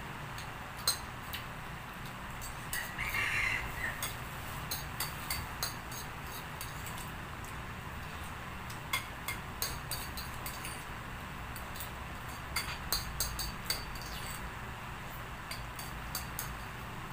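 Metal spoon clicking and scraping against a ceramic plate, with eating sounds, as short irregular clicks over a steady low hum.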